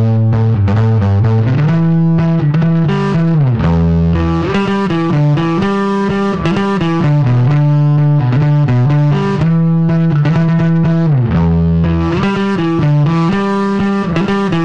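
G&L electric bass played through an Orange amplifier with distortion, in a melodic solo line up the neck. About four and eleven seconds in it slides down to a low held note.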